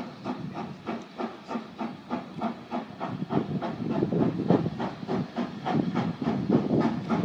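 Steam exhaust chuffing from Southern Railway S15 class 4-6-0 No. 847 as it approaches under steam. There are about four beats a second, getting louder from about halfway through.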